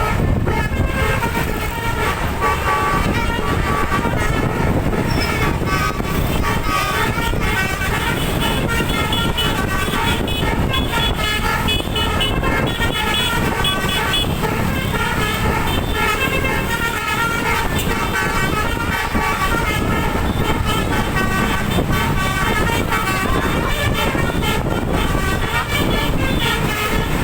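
A bus's twelve-trumpet telolet air horn playing a fast tune of short tooting notes, the pitch jumping from note to note throughout, over steady engine and road noise.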